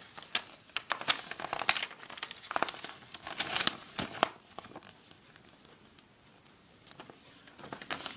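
Paper crinkling and rustling as a thin booklet is handled and its pages turned, in a run of crackly bursts that dies down about halfway through, with a few faint crackles near the end.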